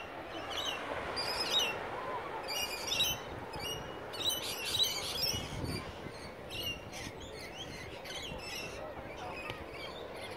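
Small birds chirping in short, high calls, many in the first half and fewer later, over a steady background murmur.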